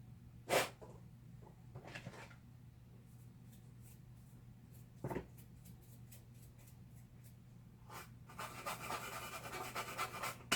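Workbench handling noises over a steady low electrical hum: a sharp knock about half a second in, a couple of softer knocks and scattered light ticks, then about two seconds of dense scratchy rubbing near the end.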